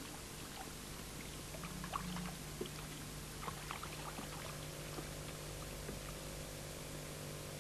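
Faint water trickling and dripping, with scattered small drip sounds, over a steady low hum.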